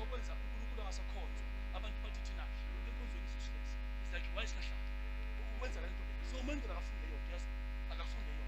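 Steady electrical mains hum with a stack of buzzing overtones, running without change, with faint scattered voices over it.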